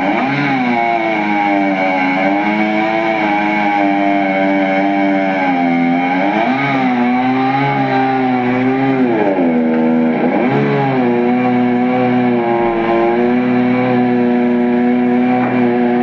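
Two-stroke chainsaw running at high revs while cutting firewood logs. Its engine speed sags and recovers several times as the chain bites into the wood.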